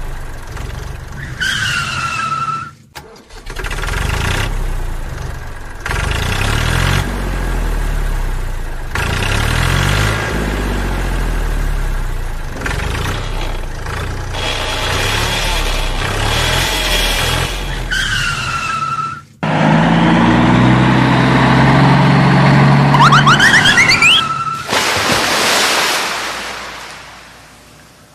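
Vehicle engine sound effects laid over a toy tractor towing a toy car: an engine starting and running, cut together from separate clips with abrupt breaks about three seconds in and again about two-thirds through. A short falling squeal comes twice, and the sound fades out near the end.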